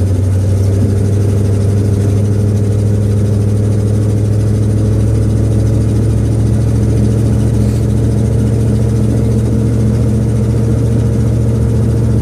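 1966 Ford Thunderbird's V8 engine running steadily on the drive, a continuous low hum whose pitch creeps slowly upward as the car gathers a little speed.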